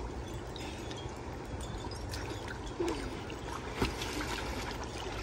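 Swimming-pool water sloshing and trickling as children swim through it, with small splashes.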